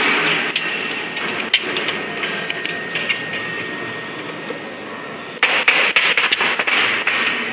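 Thin steel transformer-core strips clattering and rattling as they are handled and stacked. There is a sharp click about a second and a half in and a quick run of metallic clicks near the end, over steady workshop machinery noise.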